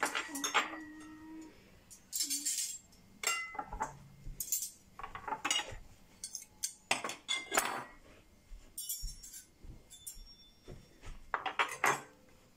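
Irregular light clinks and jingles: about a dozen short, sharp strikes, some with a brief ring after them, and two longer shimmering rattles, one about two seconds in and one about nine seconds in.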